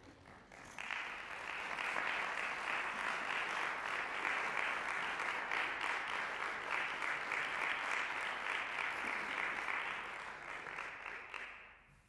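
Audience applauding, beginning about a second in, holding steady, then dying away near the end.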